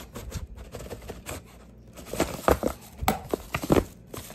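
Cardboard product box being opened by hand: a string of knocks, taps and rustles as the lid is slid off, loudest in the second half.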